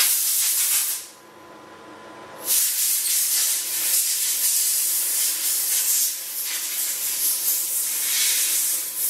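Compressed air from an air compressor hissing as it blows isopropyl alcohol off a freshly washed resin 3D print: one short blast, a pause of about a second and a half, then a long continuous blast.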